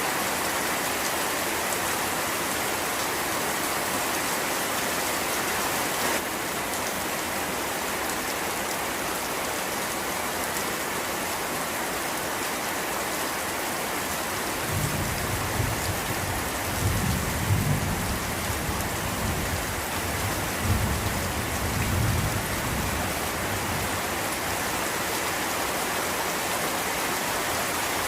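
Steady rain falling, with a low rumble of thunder rolling for several seconds about halfway through.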